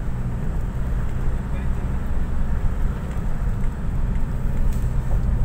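Steady low drone of a van's engine and tyres on a concrete road, heard from inside the moving van's cabin.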